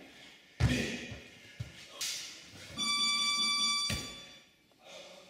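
Heavy thud of feet landing on a big rubber tractor tyre about half a second in, then smaller knocks and scuffs against it. In the middle a steady high electronic beep sounds for about a second, then stops abruptly, and another knock follows.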